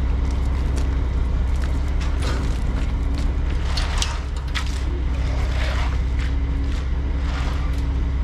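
Concrete mixer truck's diesel engine running steadily with a low rumble, along with scattered short knocks and scrapes.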